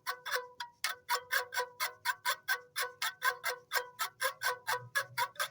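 Cowbells struck in a fast, even rhythm, about five strikes a second, each strike ringing on several bell pitches together.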